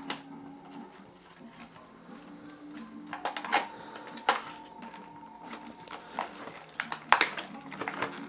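Plastic and card toy packaging crinkling and clicking as a toy is untied and worked loose from it by hand. Irregular sharp clicks and crackles come in clusters, loudest about seven seconds in.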